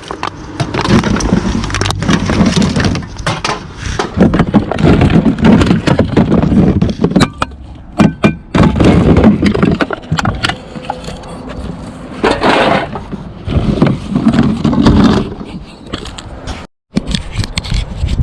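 Rummaging through curbside recycling and garbage: irregular rustling, crinkling and clattering of containers, with many short knocks and clicks.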